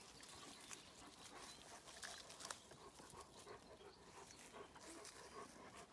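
Faint panting of a dog, with a few light clicks.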